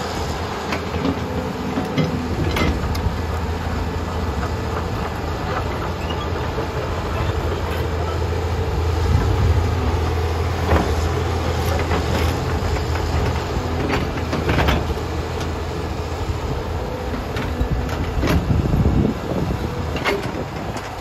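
Caterpillar 320D2 hydraulic excavator's diesel engine running under load, its low drone swelling for a few seconds about nine seconds in, with sharp knocks now and then as the machine works among broken rock.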